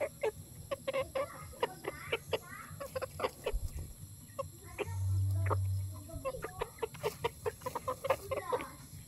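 Chickens clucking softly in short, repeated clucks, several a second, as they peck for termites in the dirt. About five seconds in, a low hum lasts for about a second.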